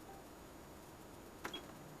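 Quiet room tone with a single short click about a second and a half in.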